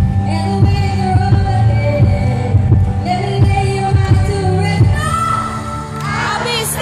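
A female pop singer singing into a microphone over amplified music with a heavy thumping bass beat. About five seconds in, the bass drops away while her voice carries on.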